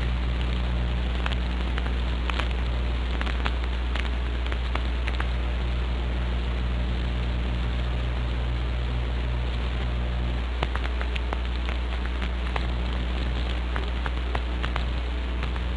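Steady hiss and low electrical hum with scattered clicks and crackles: the noise floor of an old soundtrack recording, with no music or voices.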